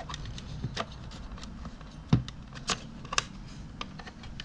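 Scattered light clicks and taps as a part is slid down into the lathe's electronics housing and handled, with one louder knock about two seconds in.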